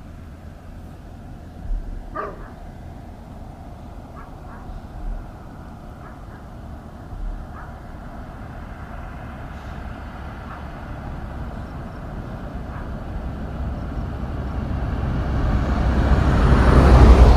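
A road vehicle approaching and passing close by. Its engine and tyre noise swells slowly over the last several seconds to the loudest point just before the end, then begins to fade, over a steady low outdoor rumble.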